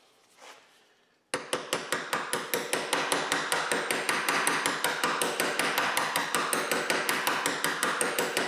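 Quick, light metal-on-metal taps, about five a second with a ringing note, starting about a second in: tapping the Model T transmission's driven gear down onto its two hub keys to start it on.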